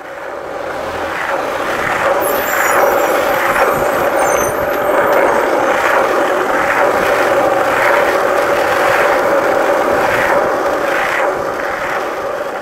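Skateboard wheels rolling fast on city street asphalt: a steady, rough roar that fades in over the first couple of seconds and swells about once a second.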